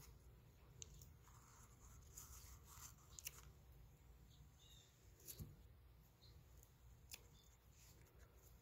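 Near silence, broken by a few faint snips and rustles as celery stalks are cut and handled.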